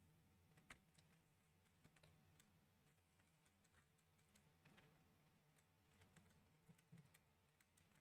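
Near silence with faint, irregular small clicks of plastic Lego Technic pieces being handled and pressed together.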